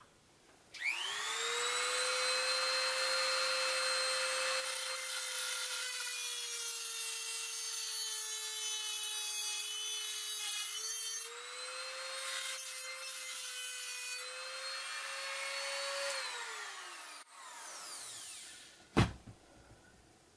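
Handheld rotary tool with a cutoff wheel spinning up to a steady high whine and cutting through a steel rod held in a vise, then spinning down with falling pitch. A single sharp knock comes near the end.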